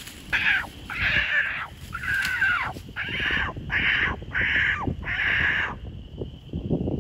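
Coon dog barking treed at a raccoon up in the tree: about seven loud barks in quick succession, each with a falling tail, then a short break near the end.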